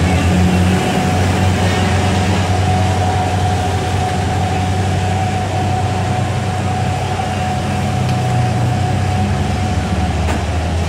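Heavy truck's engine running steadily under load as it hauls an excavator slowly up a steep grade, with a steady whine above it and road traffic noise around it.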